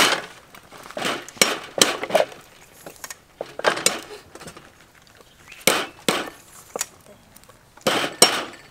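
Kitchen knife knocking on a thick wooden chopping board as limes are cut, in irregular sharp strikes, several in quick pairs.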